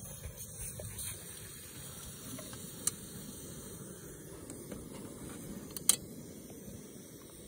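Canister backpacking stove burning with a low steady rush while a steel pot of snow is set on it to melt, with two sharp metal clinks, about three and six seconds in.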